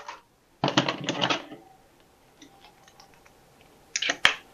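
Clear plastic packaging crinkling and crackling as it is handled, loudest in a cluster of crackles about a second in, with faint ticks after. Near the end, a few sharp snips of scissors cutting through the plastic.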